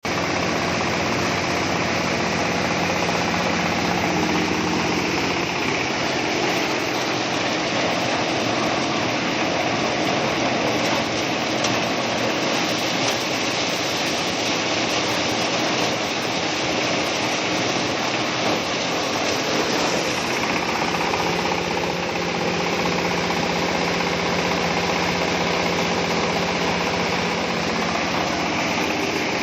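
Corn sheller for husked ears, driven by a 24-horsepower engine, running steadily on a test run.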